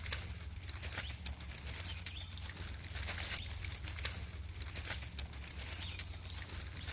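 Short rustles and crackles of dry leaf litter as a baby Siberian chipmunk scurries and forages over the forest floor, over a steady low hum.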